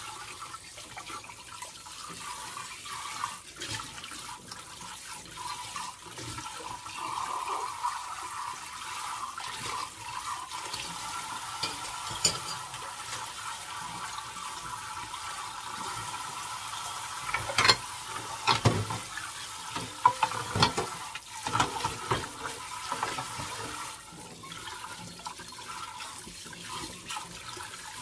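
Kitchen tap running steadily onto dishes in a stainless steel sink as they are rinsed by hand. A few sharp knocks of the dishes being handled come in the second half.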